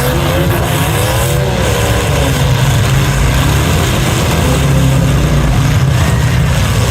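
Demolition derby cars' engines running hard and revving, pitch rising and falling, over a steady loud engine din.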